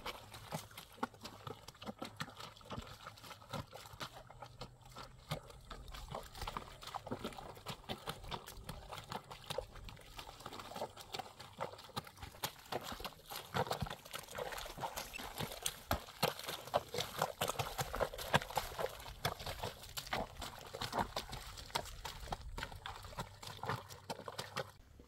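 Bare feet treading a soaked blanket in a plastic washtub: steady squelching and sloshing of wet cloth and water, louder from about halfway.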